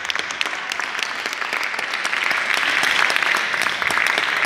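Audience applauding, a dense patter of many hands clapping that grows louder about two seconds in.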